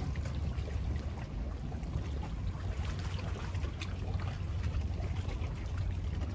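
Harbour ambience: a steady low rumble with light scattered ticks and faint water sounds.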